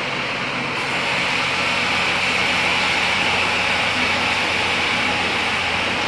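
Machinery running steadily: a low hum under a hissing band, with a brighter hiss joining about a second in.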